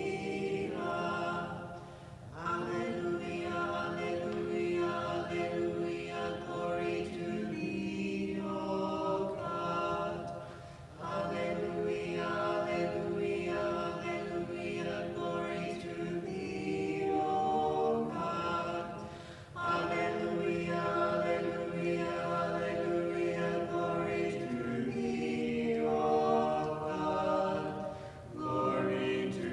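Church choir singing unaccompanied Orthodox liturgical chant, in long phrases broken by short pauses.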